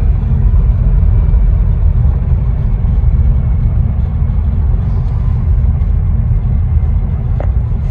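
2013 Audi A6 C7 driving, with a steady low road rumble throughout.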